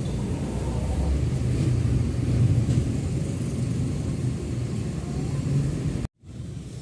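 Steady low rumble of outdoor background noise. About six seconds in it breaks off abruptly and comes back quieter.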